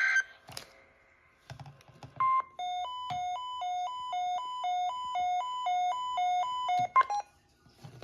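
Electronic alert tone: a brief screech of data tones cutting off at the start, then a single short beep, then a buzzy two-tone warble alternating between a lower and a higher pitch about twice a second for about four seconds, ending with a click.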